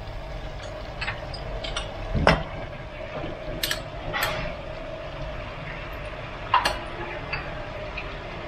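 Cooking in a pot: a utensil clinking and knocking against the pot now and then while the palo seasoning is stir-fried, over a steady hum. The loudest knock comes about two seconds in.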